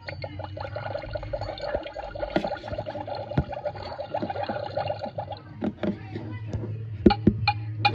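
Magic Mixies toy cauldron making a fast bubbling, liquid sound over a steady low hum. The bubbling stops a little past halfway, followed by scattered clicks and knocks of the plastic cauldron being handled, loudest near the end.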